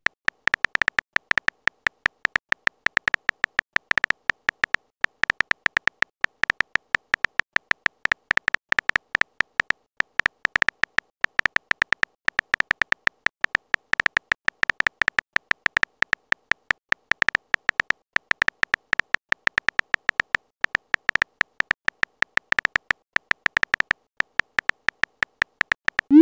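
Keyboard typing sound effect of a texting-story app: short, high, pitched clicks, one for each letter as a message is typed out, about seven a second without a break.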